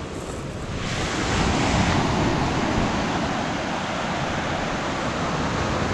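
Small surf breaking and washing up a shingle beach. The sound swells about a second in, then holds steady.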